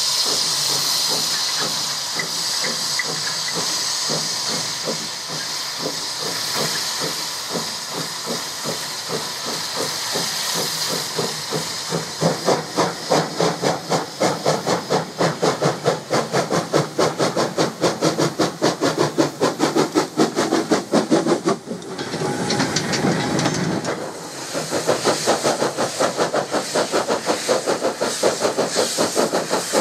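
Peckett saddle-tank steam locomotive Sir Gomer working a loaded coal train. Steam hisses from its open cylinder drain cocks at first, then sharp, regular exhaust beats grow louder as it comes near. After a break about two-thirds of the way through, the beats start again over the hiss of the drain cocks.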